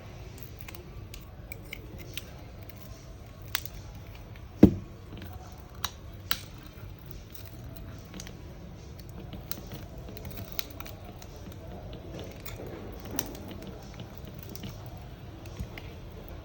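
Scattered sharp clicks and snaps of a pry tool working a cracked, glued-down smartphone display off its frame, with one loud snap about four and a half seconds in.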